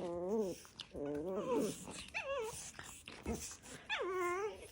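A dog's drawn-out vocal calls, four of them about a second apart, each rising and falling in pitch.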